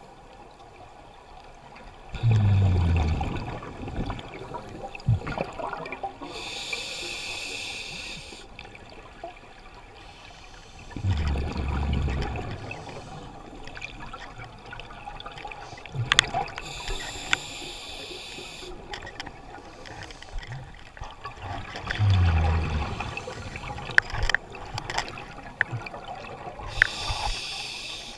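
A scuba diver breathing through a regulator underwater: slow breaths, each a hissing inhale, with the exhale coming a few seconds later as a loud low rush of bubbles. A few small clicks come in between.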